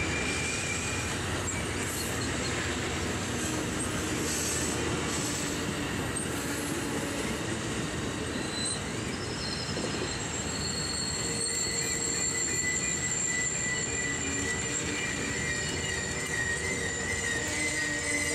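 Amtrak Superliner bi-level passenger cars rolling slowly past on steel wheels, a steady rumble of wheels on rail. From about eleven seconds in, high steady squealing comes in from the running gear as the train slows for its station stop.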